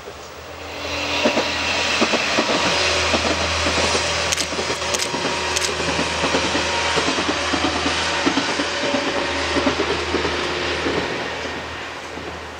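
Two-car diesel train passing over a concrete viaduct: engine and running noise swell in, hold while it crosses, then fade away. A few sharp wheel clicks over rail joints come around the middle.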